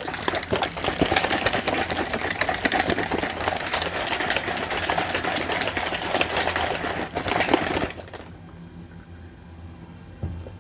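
Plastic shaker bottle shaken hard for about eight seconds, mixing a scoop of mass gainer powder with water, with a dense rattling slosh that stops abruptly. A soft thump follows near the end.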